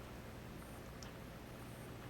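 Quiet room tone with a faint steady hum and one brief, faint high click about halfway through.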